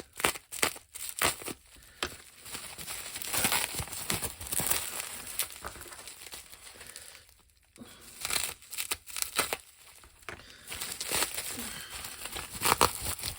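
Wrapping of a model-kit part crinkling and rustling in irregular bursts as it is handled and pulled open, with a short quiet gap about halfway through.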